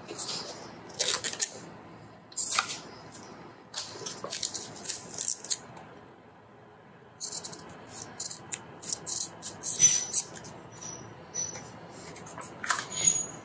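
Scissors snipping through handlebar tape, in clusters of sharp crackling cuts, with the tape rustling as it is handled. A few short high squeaks come near the end.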